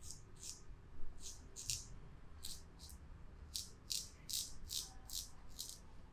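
Quick, unevenly spaced rasping strokes, about two or three a second, of something brushing or scraping against skin or hair during barbershop grooming.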